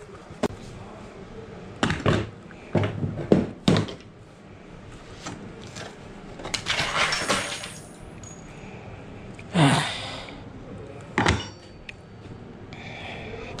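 Hand tools knocking and scraping on wood at a workbench: four sharp knocks in the first four seconds, a scraping rustle around seven seconds, a heavier thud near ten seconds and one more knock about a second later.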